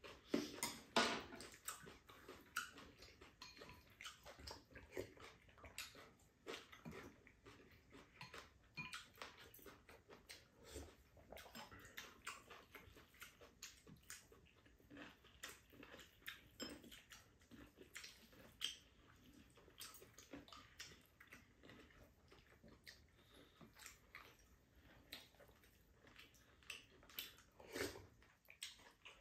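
Quiet eating sounds from two people having fried rice and soup: spoons and chopsticks clicking against bowls, and chewing, in many short, irregular clicks throughout.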